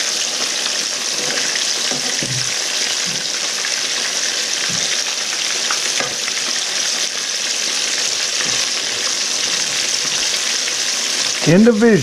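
Cornmeal-coated small bream and crappie frying in hot grease: a steady sizzle, with a few faint knocks as the fish are flipped in the pan.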